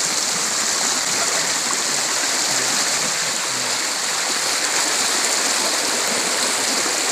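Steady rush of a flowing forest stream, an even hiss of moving water.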